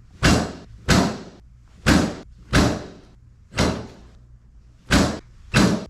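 Seven sharp slams, unevenly spaced about a second apart: the padded sections of a chiropractic drop table snapping down under the chiropractor's thrusts during spinal adjustments.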